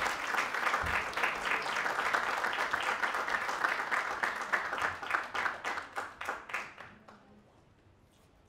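Audience applause, dense at first, thinning to a few scattered claps and dying away about seven seconds in.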